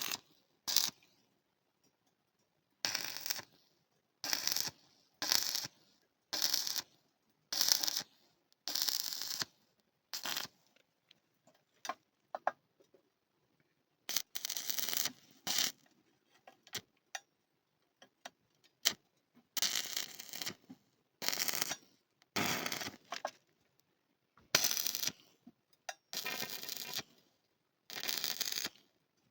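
Arc welding on steel: a long string of short crackling bursts, each lasting about half a second to a second, with pauses between them.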